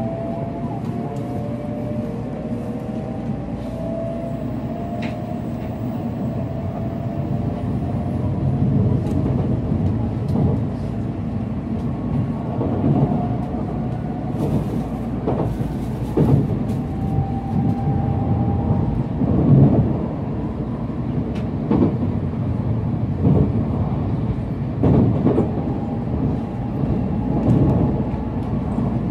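Shinkansen high-speed train heard from inside a passenger car as it pulls out and accelerates. The motors' whine rises slowly in pitch over the first several seconds, under a steady running rumble that grows louder, with a short knock every few seconds from the running gear.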